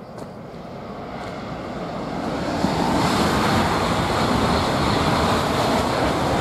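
Trenitalia high-speed train passing at speed: a rushing noise that builds over about three seconds and then holds loud and steady.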